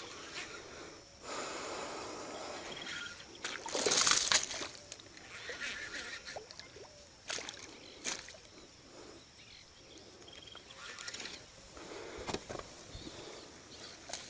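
Water splashing and sloshing as a hooked peacock bass is played through weeds toward a kayak. The loudest splash comes about four seconds in, and a few sharp knocks follow later.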